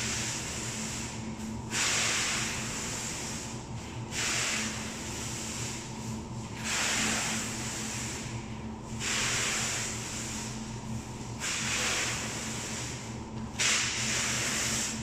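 Hand roll of pre-stretch film unwinding as it is pulled around a loaded pallet, a hissing, crackly rip that comes in pulls of about two seconds each with brief breaks between, over a steady low hum.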